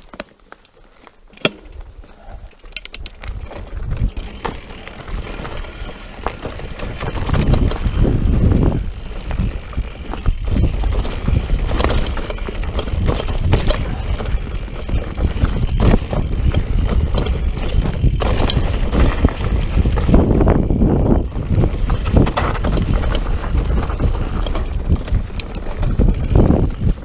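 Mountain bike riding down a rocky dirt trail: tyres rumbling over dirt and stones with frequent knocks and clatter from the bike. Quiet for the first few seconds, then louder from about four seconds in.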